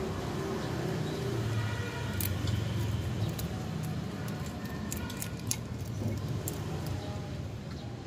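Kittens eating shrimp shells off a plate: scattered sharp crunches and clicks, thickest in the middle, over a steady low rumble.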